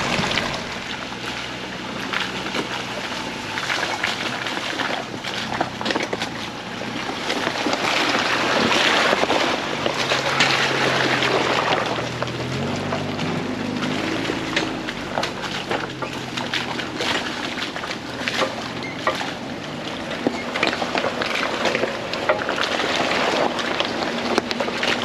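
4x4 vehicle driving slowly over a rough trail: the engine runs low, with its pitch stepping up and down about halfway through as it revs, under a steady rush of tyre and wind noise with frequent clicks and knocks.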